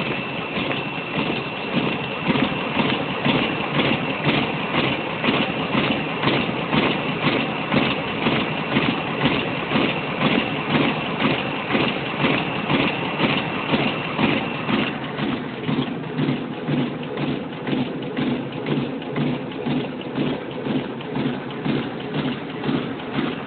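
Riso FR3910 digital duplicator printing a run of sheets, its mechanism beating at about two strokes a second, one stroke per sheet fed and printed. A thin high whine runs along with it until about two-thirds of the way through.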